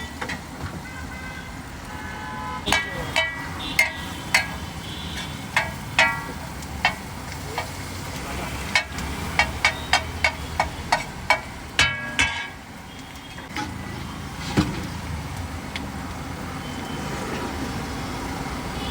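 Busy street traffic with vehicles running and horns tooting in short notes, over repeated sharp clinks and clatters.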